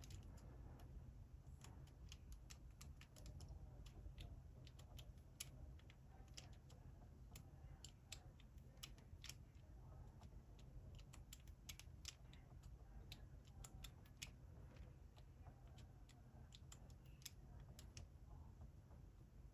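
Faint, irregular clicks of a Master Lock 875D combination padlock's number wheels being turned by hand while the last digit is decoded.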